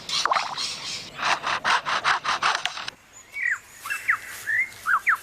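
Superb lyrebird mimicking foresters' chainsaws and sawing: a fast run of rasping strokes, about four or five a second. About three seconds in it switches to sharp whistled notes that swoop up and down.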